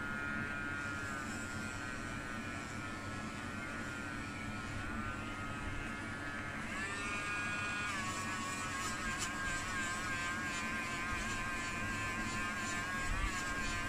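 Dremel Micro cordless rotary tool spinning a felt polishing wheel, buffing plastic polish into a clear plastic part: a steady motor whine whose pitch wavers as the wheel is pressed on and eased off, shifting about seven seconds in and then holding a steadier note.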